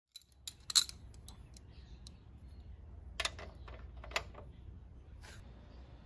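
Metal hand tools clinking as a ratchet and sockets are handled on a scooter's front axle bolt and nut. There are a handful of short, sharp clinks, the loudest about a second in, over a low steady rumble.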